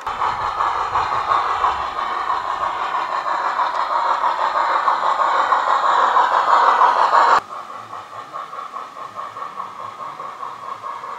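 Garden-railway model of Harz narrow-gauge steam locomotive 99 222 running with a train of ballast hopper wagons: a rhythmic chuffing and the rattle of wheels on the track. It grows louder as the train approaches, drops sharply about seven seconds in, and carries on fainter.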